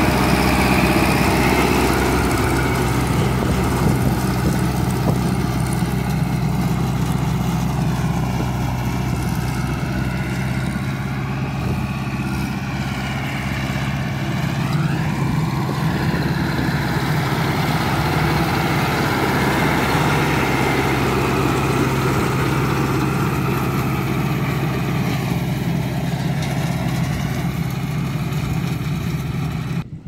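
John Deere 3020 tractor's four-cylinder engine running steadily while pulling a hay crimper, with a higher mechanical whine that bends up and down in pitch around the middle and again near the end.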